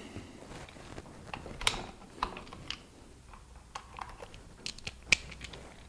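Light, scattered clicks and taps of small plastic parts being handled: the hop-up housing of an airsoft pistol being closed and set down, then a hand rummaging in a plastic screwdriver bit case. The sharpest click comes about five seconds in.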